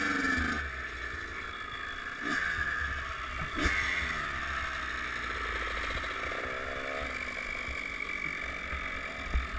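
Kawasaki KX100 two-stroke dirt bike engine running with varying revs, then dying away about half a second in. The rest is low wind rumble and hiss on the helmet-camera microphone, broken by a few short sounds with brief rising sweeps.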